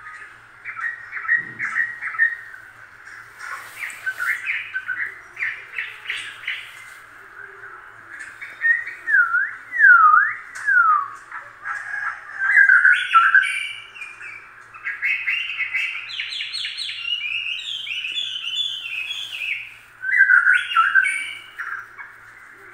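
Rats squeaking in quick runs of high chirps and short sliding squeals, typical of rats squabbling over food.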